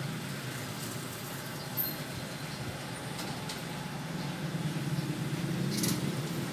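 Low rumble of a motor vehicle's engine running, growing louder in the second half.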